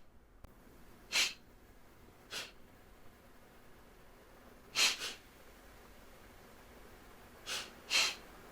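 Kapalabhati breathing: short, sharp exhalations forced out through the nose by a quick contraction of the belly, about five puffs at an uneven rhythm.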